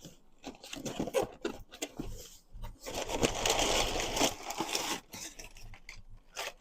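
Packaging being handled and opened by hand: scattered rustles and light taps, then about two seconds of dense crinkling about three seconds in, then a few more rustles.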